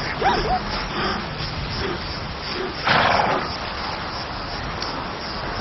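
Lion sounds: a low steady rumble with a short, loud breathy huff about three seconds in. A couple of faint squeaky calls come right at the start.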